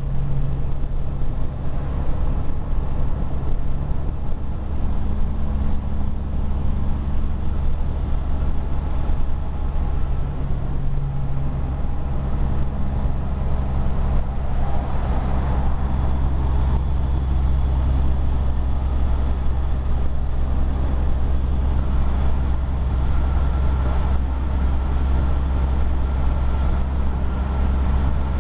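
Semi-truck's diesel engine and exhaust heard from inside the cab while driving: a steady low drone whose engine note shifts a few times.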